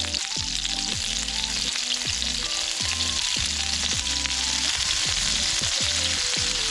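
Battered rings deep-frying in hot oil in a black iron pan: a steady, dense sizzle.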